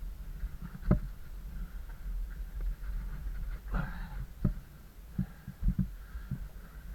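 Footsteps and scuffs on cave rock with irregular knocks, the loudest about a second in and several more in the second half.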